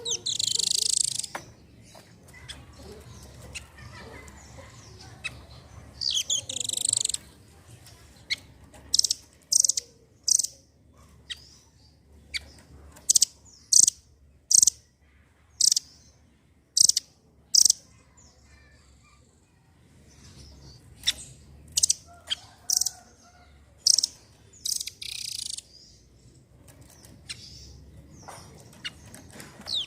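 Rambatan doraemon nuthatch calling: a series of short, sharp high notes, one every half-second to second, broken by a few longer harsh, rasping calls of about a second each.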